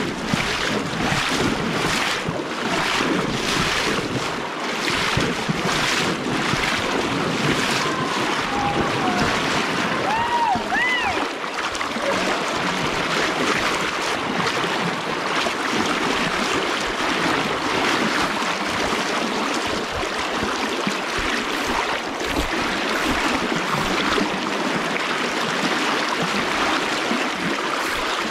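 Fast, shallow river current rushing and splashing around a wading angler's legs, a steady rush of water. A few short whistled notes sound about ten seconds in.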